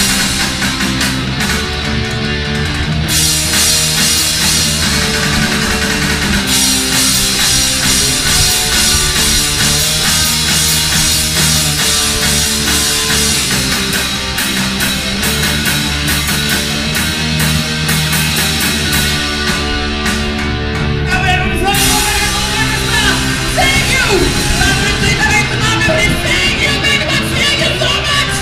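Live rock band playing loudly: electric guitars, bass guitar and a drum kit, with a vocalist singing into a microphone. Near the end a wavering, bending melody line rises over the band.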